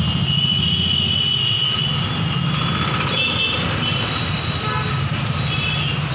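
Steady low engine drone, pulsing quickly and evenly, with short high-pitched tones now and then, the longest about half a second in.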